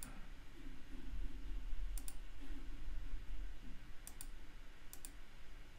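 Computer mouse clicks, a few short sharp ones, mostly in quick pairs a second or two apart, over a faint low room hum.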